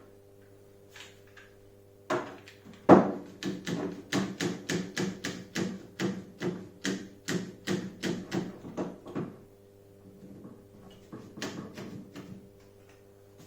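A clamp being tightened: a louder clack, then a quick run of about twenty clicks, three or four a second, stopping a little after halfway, and a few fainter clicks near the end.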